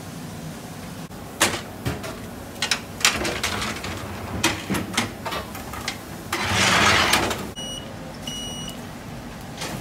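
Bakery kitchen work: a run of sharp knocks and clatters of metal trays and equipment, then a loud rush of hissing noise lasting about a second, then two short electronic beeps from an appliance, over a steady machine hum.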